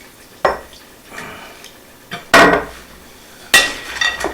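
Kitchen utensils and dishes knocking and clinking: about five sharp strikes, the loudest about two and a half seconds in, several with a brief metallic ring.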